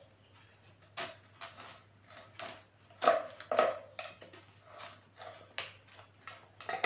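Knife cutting a raw ash gourd into pieces on a wooden chopping board: irregular sharp cuts and knocks, about one or two a second.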